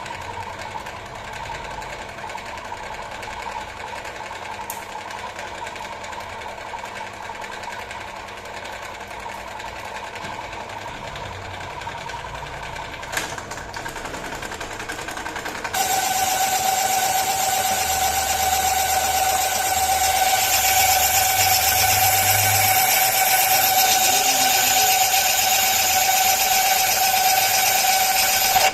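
Metal lathe running steadily. About halfway through it grows louder, with a steady high whine and hiss.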